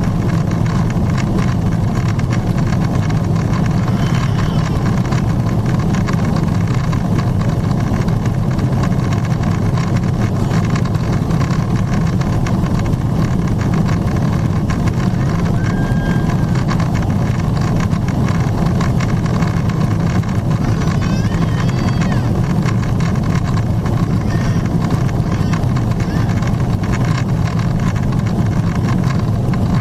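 Steady cabin noise of a Boeing 777-300ER in its climb, heard from a window seat: the low, even drone of its GE90 engines and the rush of air past the fuselage. A few faint, brief high tones sound near the middle.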